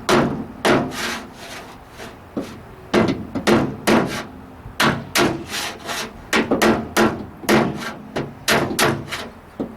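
Small ball-peen hammer tapping the inside of a 1968 AMX's steel front fender: a long run of sharp, irregular taps, about two or three a second, knocking up the low spots in the panel.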